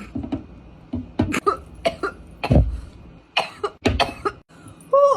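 A woman coughing repeatedly after a long 'blinker' hit from a vape: a dozen or so short coughs in clusters, starting about a second in, the loudest and deepest about halfway through.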